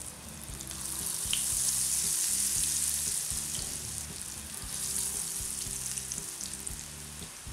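Battered bottle-gourd peel rolls deep-frying in hot olive oil: a steady sizzle that swells as more rolls are dropped in, about a second in and again around five seconds.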